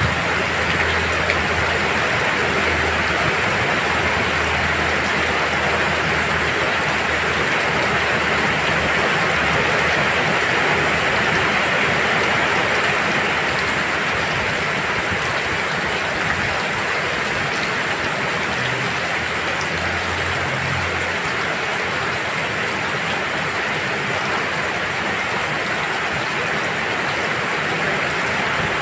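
Heavy rain falling steadily into a shallow garden pond and onto stone ledges and potted plants, an even hiss of countless drops with no let-up.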